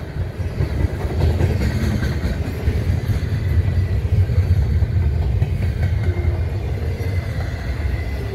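Double-stack intermodal container cars rolling past on the rail, a steady low rumble of wheels and cars.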